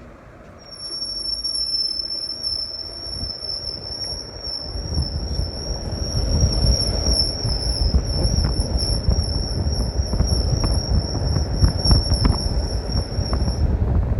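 A steady, high-pitched squeal from a Ford Flex SUV, starting about half a second in and cutting off near the end. Under it, a low rumble of the vehicle grows louder from about five seconds in.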